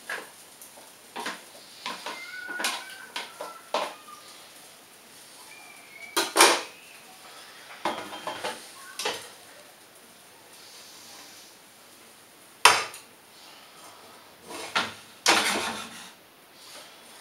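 Cooking utensils, pan and dishes clinking and knocking: scattered light clicks, with sharp knocks about six and twelve seconds in and a longer clatter near the end.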